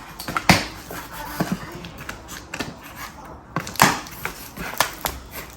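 A parcel being opened by hand: scattered sharp clicks and knocks of packaging being handled, loudest about half a second in and again near the end.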